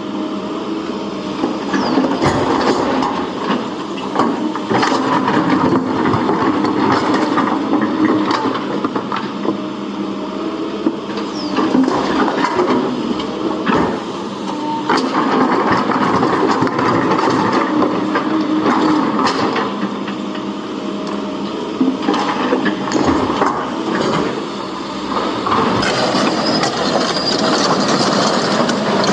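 Heavy machinery working: a steady engine running under frequent knocks and clattering, typical of an excavator loading stone.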